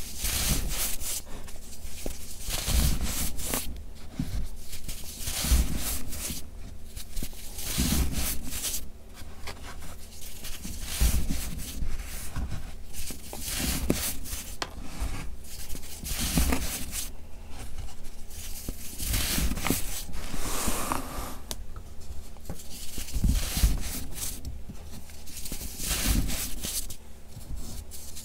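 Hands crumbling pressed blocks of gritty baking soda and squeezing and rubbing the loose powder: a run of crunching, rubbing squeezes, one every second or two.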